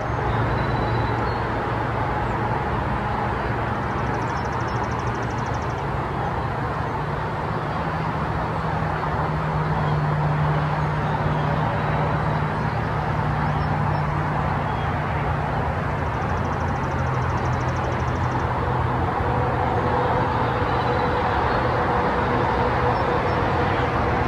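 A vehicle engine running steadily with a low hum whose pitch drifts slightly. A faint, high, fast trill comes and goes twice, about four seconds in and again about sixteen seconds in.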